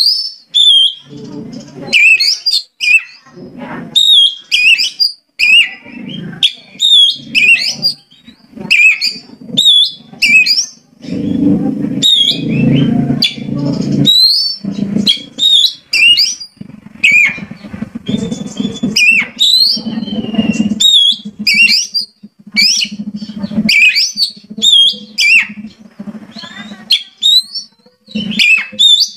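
Oriental magpie-robin singing: a fast run of varied, clear whistled notes that swoop up and down, phrase after phrase with short gaps. A low rough rumble comes and goes beneath the song, heaviest about halfway through.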